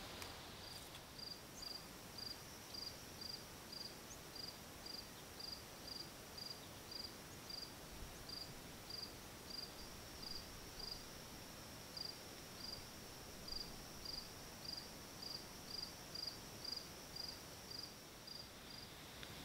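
A cricket chirping steadily in short high chirps, about two a second, with a couple of brief pauses, faint over a quiet background hiss.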